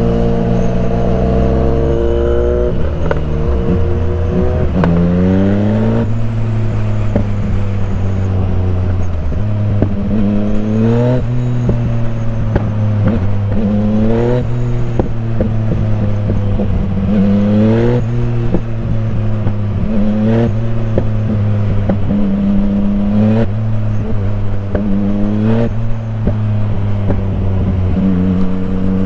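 Motorcycle engine running hard under way, its revs climbing and dropping back repeatedly as the rider shifts through the gears.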